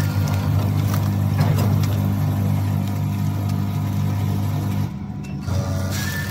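Vertical form-fill-seal sachet packing machine for powder running: a steady motor hum with a fast pulsing rhythm and scattered clicks from its mechanism. The hum dips briefly about five seconds in, and a short high tone sounds near the end.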